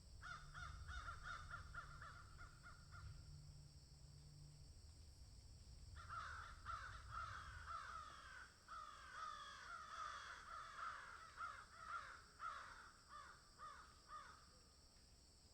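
A group of crows cawing: a quick run of repeated caws for about three seconds, then after a short pause a longer stretch of many caws overlapping each other.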